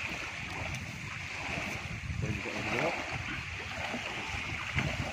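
Small waves lapping and water sloshing in the shallows as a fishing net is hauled through the water onto the shore.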